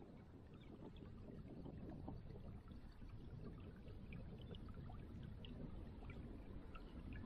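Faint outdoor background: a steady low rumble with scattered faint, short high chirps or ticks.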